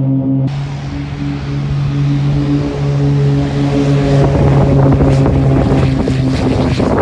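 Cessna 340A's twin Continental TSIO-520 piston engines droning steadily at high power during take-off, with a rushing of air over the aircraft that grows stronger over the second half.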